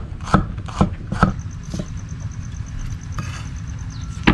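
Cleaver slicing bitter gourd (ampalaya) on a wooden chopping block: four quick chops about half a second apart, a pause, then one more chop near the end. A steady low hum runs underneath.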